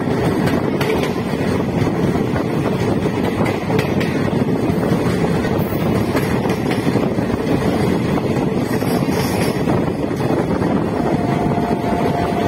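A DEMU train running along the line, heard on board: a steady rumble from the running gear with wind buffeting the microphone. A faint steady high tone comes in near the end.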